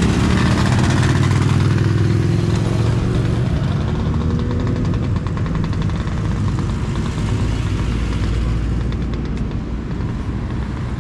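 A group of motorcycles riding past at close range, their engines running loud in a low rumble that is strongest in the first few seconds and then eases as the column goes by and cars follow.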